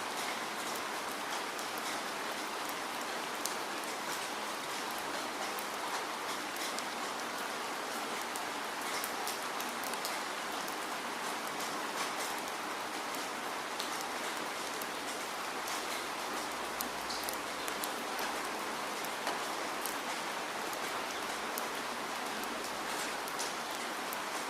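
Steady rain falling, an even hiss with many small drops ticking on a surface.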